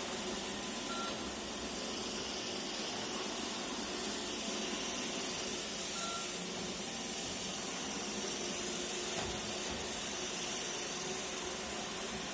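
iRobot Roomba e5 robot vacuum running: a steady whir and hiss of its suction motor and brushes, with two short high blips, about a second in and about six seconds in.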